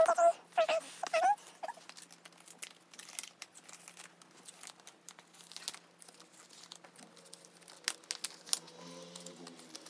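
Clear plastic photocard binder sleeves crinkling and rustling as cards are slid into the pockets, with scattered light clicks of card against plastic. A short stretch of murmured voice comes at the very start.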